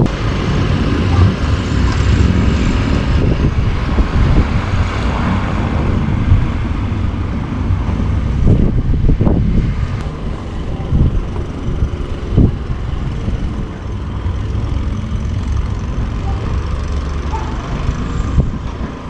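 Car engine running steadily as the car tries to drive out through deep snow; the car is not getting anywhere, its wheels sinking into the snow.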